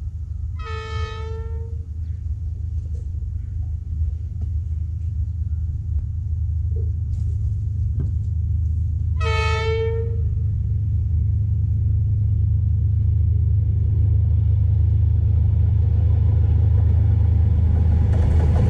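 Diesel locomotive approaching and sounding its horn twice, each a single steady blast of about a second, the second some eight seconds after the first. A low rumble grows steadily louder as the train nears, swelling near the end as it arrives.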